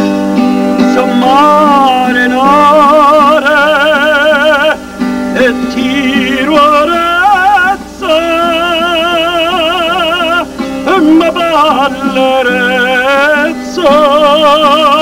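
A man singing an Italian love song with a wide vibrato on long held notes, accompanying himself on a strummed acoustic guitar, with brief pauses for breath between phrases.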